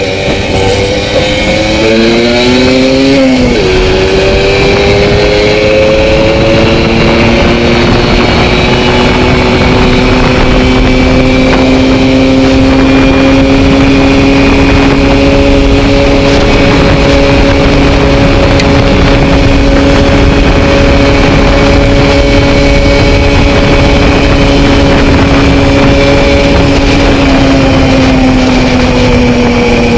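Zündapp CS 50 moped's two-stroke single-cylinder engine, bored out to 70 cc, running hard under way. Its pitch climbs, drops sharply with an upshift about three seconds in, climbs again and then holds steady at high revs, easing off slightly near the end.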